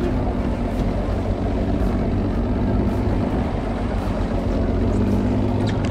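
Boat engine running steadily, a constant low hum under a wash of wind and water noise.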